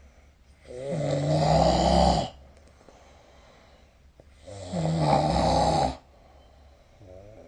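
A person snoring in sleep: two loud snores, each about a second and a half long and about four seconds apart, with quiet breathing between.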